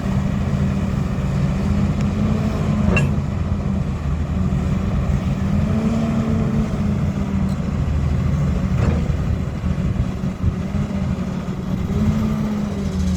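John Deere 230C LC excavator's diesel engine running steadily, its pitch rising briefly a few times. Two sharp clicks sound about six seconds apart.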